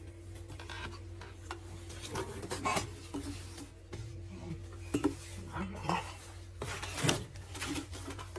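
Hard objects being handled: scattered clinks, knocks and rubbing as parts are rummaged through, over a steady low hum.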